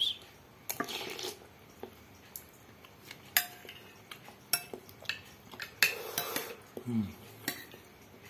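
Metal cutlery clinking and scraping against a glass bowl of noodle soup as the noodles are stirred and scooped: about a dozen sharp, irregular clinks.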